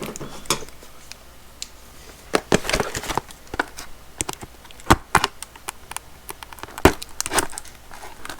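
Cardboard and plastic packaging being handled and opened: irregular clicks, knocks and crinkling, with two sharp knocks about five and seven seconds in.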